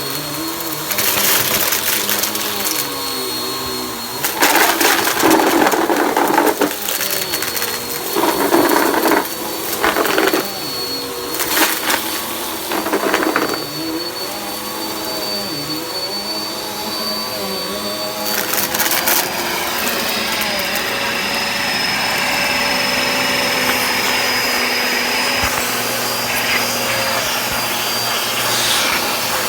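Vacuum cleaner running with a steady high motor whine, with short loud bursts of rattling as crunchy debris is sucked up, about eight times in the first twenty seconds.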